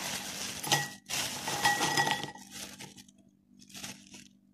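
Hard, crunchy fried snack sticks and wheels pouring from a plastic bag into a ceramic bowl, rattling and clinking against the bowl in two dense bursts, then only a few pieces trickling down.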